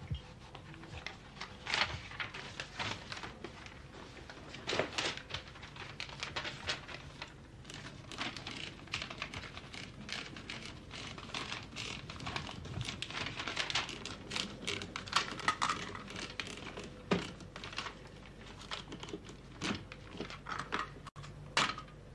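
Manual typewriter being typed on: keys striking in irregular clacks, some singly and some in quick runs.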